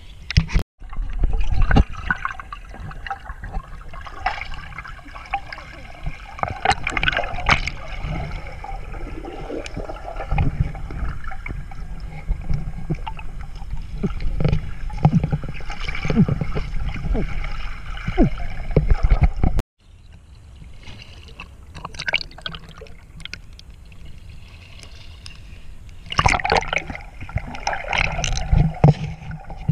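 Muffled underwater water sound from a swimmer diving in a pond: gurgling, bubbling and sloshing with scattered clicks, heard through a waterproof camera. It cuts out abruptly twice.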